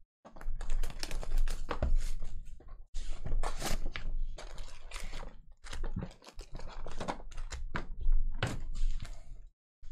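Foil-wrapped trading card packs and their cardboard hobby box being handled and set down in stacks on a table: crinkling foil with irregular taps and clicks.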